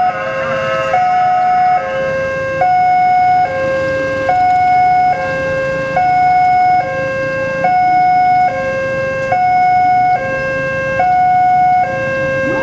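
Railway level-crossing warning alarm: an electronic signal alternating steadily between a higher and a lower tone, each held just under a second, sounding while the crossing is closed for an approaching train.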